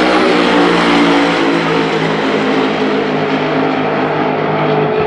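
Two drag cars at full throttle going away down the strip, one of them a twin-turbocharged Corvette ZR1 V8. The engines make a steady, loud drone that slowly fades with distance.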